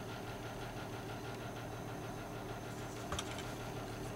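A steady low machine hum, with one short click about three seconds in.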